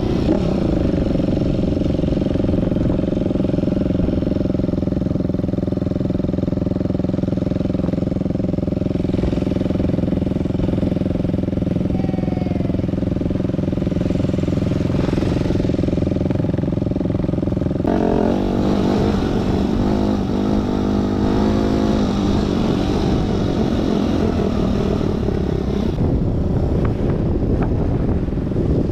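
Enduro motorcycle engine running steadily while riding off-road, with a shift in the engine note about two-thirds of the way through.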